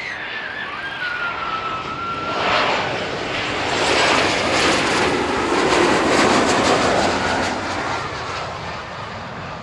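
Jet airliner passing low overhead on its landing approach: the engine noise swells over a couple of seconds, is loudest around the middle, then fades away.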